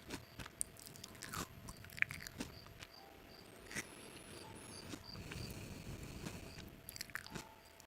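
Close-up eating sounds: a person biting and chewing a crunchy snack, with scattered sharp crunches. A faint high pip repeats about three times a second underneath.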